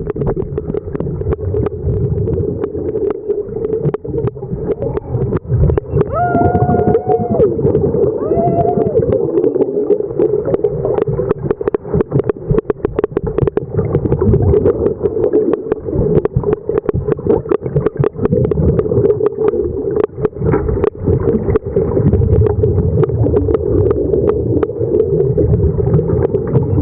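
Underwater sound: a steady boat hum carried through the water, with dense crackling and gurgling of bubbles. Two short wavering tones come about six and eight seconds in.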